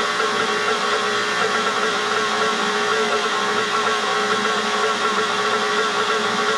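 Electric stand mixer running steadily, its motor humming as it mixes sourdough bread dough.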